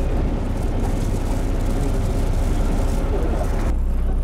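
Fishing boat's engine running with a steady low rumble. Near the end the sound turns to a smoother, lower hum.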